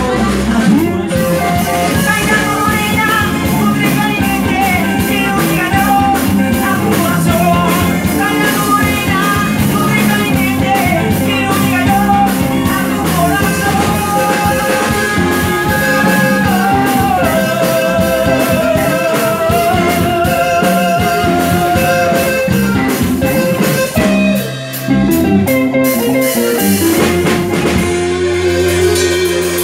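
Live band playing an upbeat song with a lead singer, electric guitar, bass and drum kit over a steady beat. The music drops out briefly near the end, then the band comes back in.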